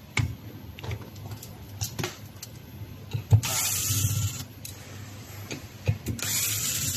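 Power drill-driver running in two short bursts of about a second each, driving or backing out screws, with clicks and knocks of handling between the runs.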